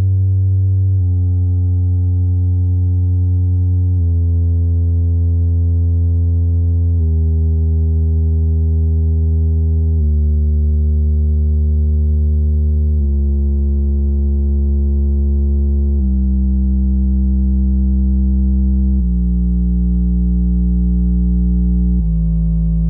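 Yamaha YST-SW030 8-inch subwoofer playing low test tones. Each tone is held for about three seconds before the pitch steps to a new note, mostly moving lower as it goes. Every tone carries a stack of overtones above it.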